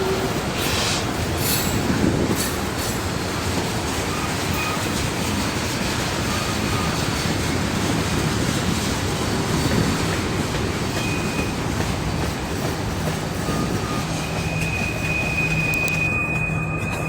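Norfolk Southern freight train rolling down a steep mountain grade: a steady rumble and hiss of wheels on rail, broken by short high-pitched wheel squeals that come and go. Near the end one squeal is held longer.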